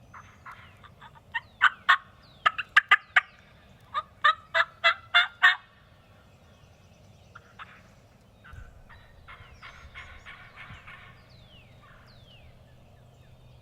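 Wild turkey calling: a run of loud, sharp, evenly spaced yelp-like notes, about three a second, for a few seconds, then fainter notes of the same kind later on.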